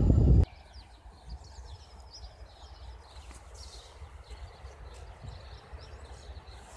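Small birds chirping and singing over a faint low rumble. It opens with half a second of loud low rumbling that cuts off abruptly.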